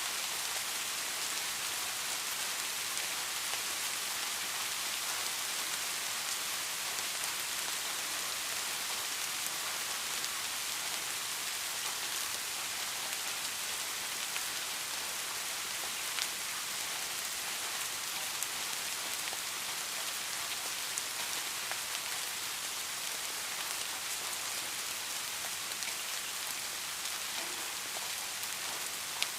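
Steady rain falling, an even hiss of many drops with scattered individual drop ticks.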